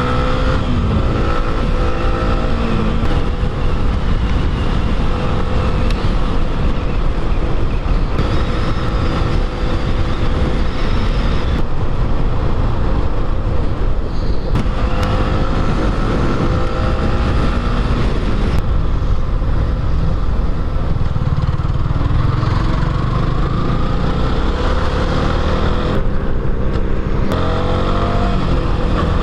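Yamaha R15 V3's single-cylinder engine running on the move, its pitch rising and falling again and again with the throttle and gear changes.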